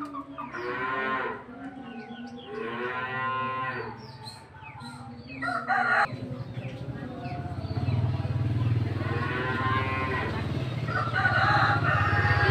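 Several drawn-out animal calls, each with a rising and falling pitch: two in the first few seconds and two more in the second half. A low steady drone grows louder from about halfway through.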